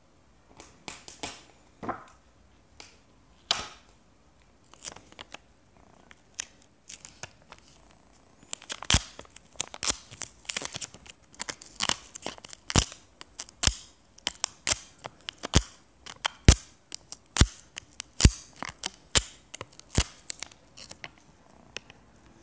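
Short scratching strokes of a hand tool working over an engraved piece of jewellery. They come in ones and twos at first, then about two a second from roughly eight seconds in.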